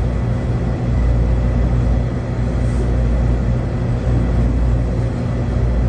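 A steady low rumble and hum of room noise, with no distinct events.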